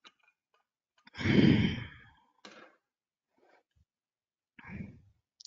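A person sighs heavily, a long exhale of about a second starting about a second in. Two fainter breath noises follow, one near the middle and one near the end.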